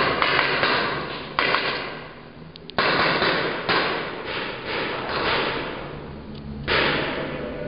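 Paintball markers firing, shots echoing off bare concrete: several sudden bangs, about a second and a half apart and then a longer gap, each dying away over about a second.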